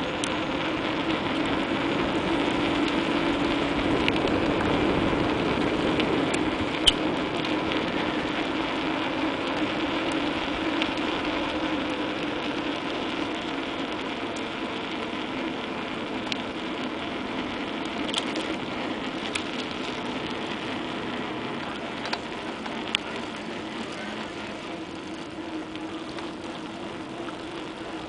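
Bicycle rolling along an asphalt path: a steady rush of tyre and wind noise, with the ratchet-like ticking of the freewheel and a few sharp clicks from the bike. The rush grows gradually quieter after the first several seconds.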